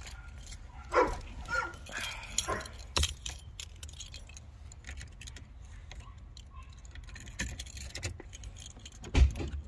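Clicks, knocks and light rattles from the glovebox trunk-release button and its surroundings in a 1986 Chevy Caprice as the pop-trunk release is tried, over a low steady rumble. A heavier thump comes near the end.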